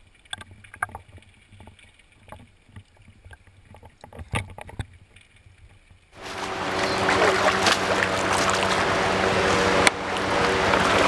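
Faint underwater sound: muffled quiet with scattered small clicks and knocks. About six seconds in it cuts to the loud, steady rush of flowing river water.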